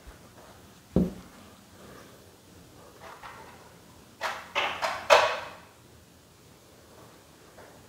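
A single sharp thump about a second in, then four short, noisy scraping bursts in quick succession around four to five and a half seconds, like a drawer or door being handled in a room.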